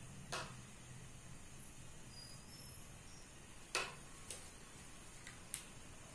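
A handful of short, faint clicks and taps, the sharpest about three and a half seconds in, over a low steady hum.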